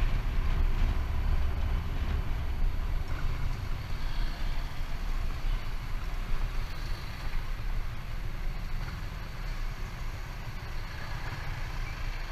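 A vehicle running, with a steady low rumble and wind noise on the microphone.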